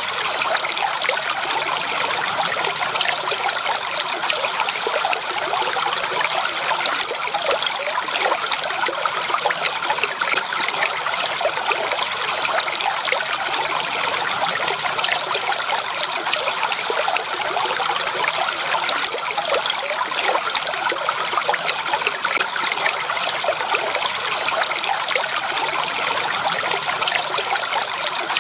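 Stream water trickling and splashing over stones in a steady, unchanging babble.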